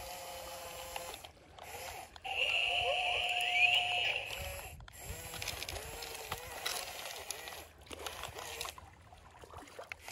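The small electric motors of a toy remote-control bulldozer whine as it drives and works its bucket, the pitch rising and falling. A louder, sharply rising whine comes about two seconds in. Sand crunches and grits under the tracks and blade.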